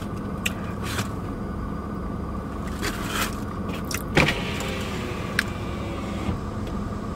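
Steady hum inside a car's cabin from the running car, with a few short crinkles and clicks of a foil sandwich wrapper being handled, the loudest about four seconds in.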